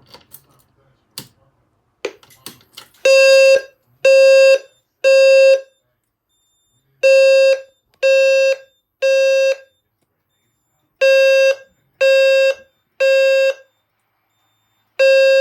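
Some clicks and knocks, then a fire alarm low-frequency sounder, an EST Genesis 520 Hz square-wave unit, sounding the temporal-3 evacuation signal. It gives three half-second buzzing tones, then a pause, repeated three times, with a fourth round starting near the end.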